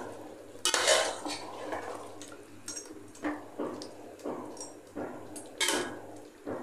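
A ladle stirring chicken curry in a pot, scraping and clinking against the pot's sides in irregular strokes, with wet sounds from the watery gravy just added. The sharpest clinks come about a second in and near the end.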